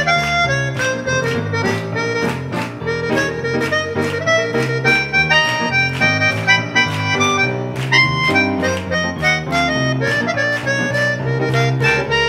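Instrumental passage of a slow ballad: a Yamaha grand piano plays chords and runs while a reedy wind instrument carries a held melody over it.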